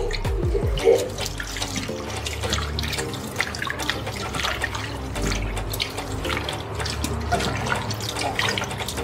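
Hands swishing and squeezing pieces of beef intestine in a stainless steel bowl of water in a sink, with many small irregular splashes.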